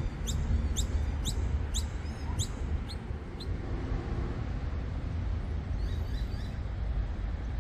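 A small bird chirping, a short rising chirp about twice a second, which stops about three and a half seconds in, with fainter chirps near the end. Under it runs a steady low rumble.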